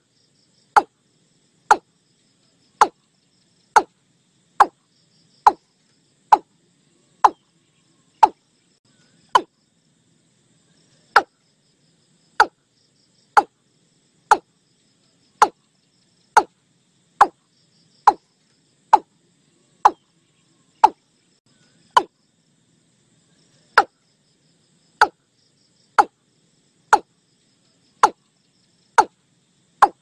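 Watercock calls: short, sharp notes that each drop quickly in pitch, repeated about once a second with a couple of longer pauses, over faint insect chirring.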